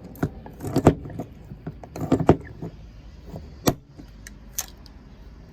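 Hand pop-rivet tool being squeezed to set a rivet: a series of sharp metallic clicks and clacks in small clusters, with the sharpest single crack about three and a half seconds in.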